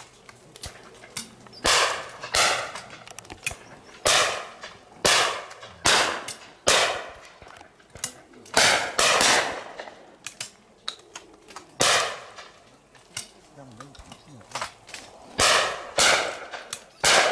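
Shotguns firing at clay targets from several shooting stands: about a dozen shots at uneven intervals, some close together in pairs, each dying away quickly, some nearer and louder than others.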